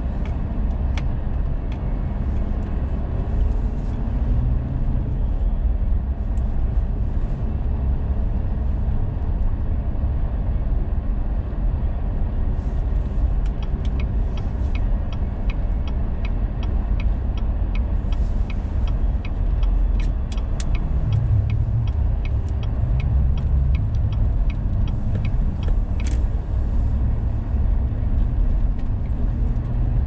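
Steady low rumble of a car's engine and tyres heard from inside the cabin while driving slowly on a snow-covered street. Several seconds of quick, evenly spaced ticking come in the middle.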